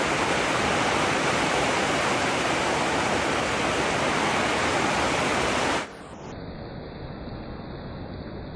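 Heavy rain falling, a loud steady hiss. About six seconds in it cuts off abruptly to a quieter, duller steady noise.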